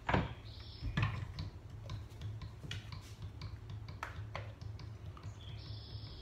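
A plastic blender jar knocked twice as its lid comes off, once at the start and once about a second in, then a spoon clicking lightly against the jar's plastic walls a few times as dressing is scooped out for a taste.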